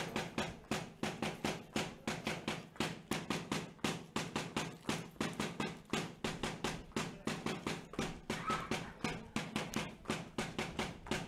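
Percussion beating a quick, steady rhythm of about four sharp strokes a second, playing for a dance.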